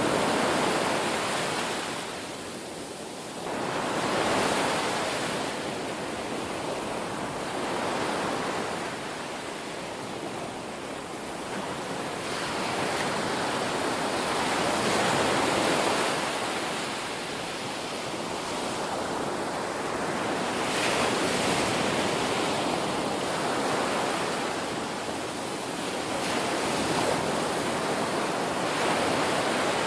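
Ocean waves breaking and washing on a shore, a continuous rush of surf that swells and ebbs every few seconds.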